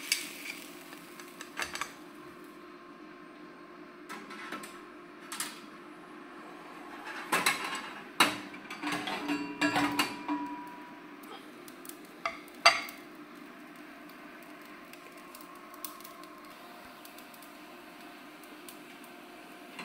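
Stainless steel grill grate and its lift handle clattering and scraping against the metal of an infrared steak grill as the grate is slid into its slot. There are scattered metal clicks, a dense run of knocks through the middle and one loudest clank a little later, then only a low steady hum.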